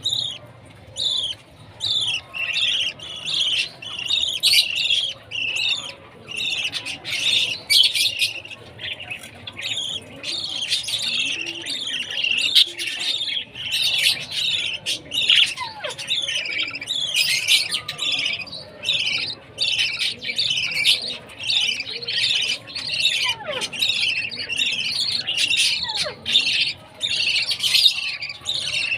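Baby budgerigars chirping continuously in a rapid run of short, high chirps, several a second: chicks calling at feeding time.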